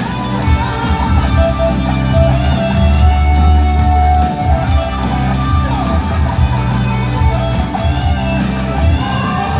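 Live rock band playing loud: distorted electric guitar and bass over a drum kit keeping a steady beat on the cymbals.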